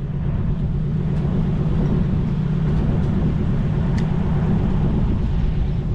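An engine running steadily at a constant speed, a loud, even low rumble with no change in pitch.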